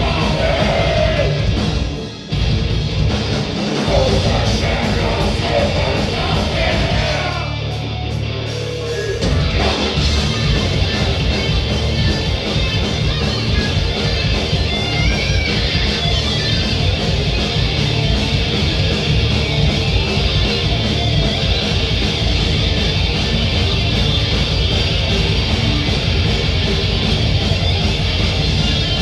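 Rock band playing live and loud, with electric guitars. About eight seconds in, the band thins to a held low note for a couple of seconds, then comes back in at full volume.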